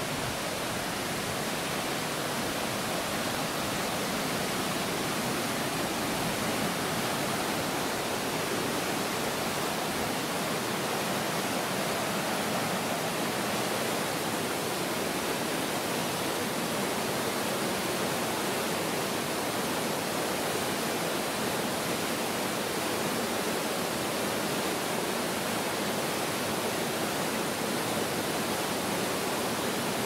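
A rocky mountain stream rushing through white-water rapids: a steady, unbroken sound of running water.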